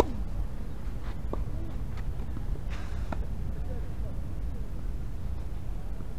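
A single sharp crack of a tennis ball being struck right at the start. A few faint ticks follow over a steady low outdoor rumble.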